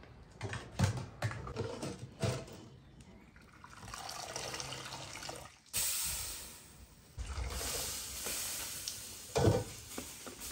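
Hot water pouring and dripping off a boiled cabbage as it is lifted from a pot into a metal colander, with sharp clinks of a metal utensil against the pot and colander in the first few seconds and a knock near the end.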